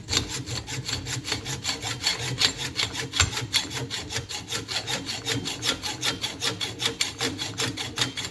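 A hand hacksaw cutting through a steel door hinge from a 1967 Chevy G10 van, held in a bench vise. The blade scrapes in quick, even back-and-forth strokes, about five or six a second.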